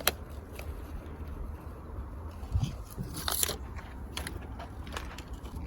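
Irregular clicks, crunches and light scraping of close handling, with a louder crackle about three seconds in, over a steady low rumble.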